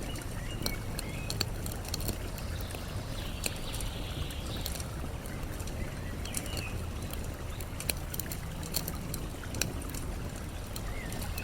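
Campfire crackling, with frequent sharp pops, over a steady rush of flowing water; a bird chirps briefly a few times.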